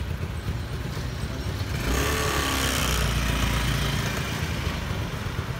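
Small motorcycle engine idling with a steady low putter. About two seconds in, a passing scooter comes close and the sound swells for a second or so, then eases back.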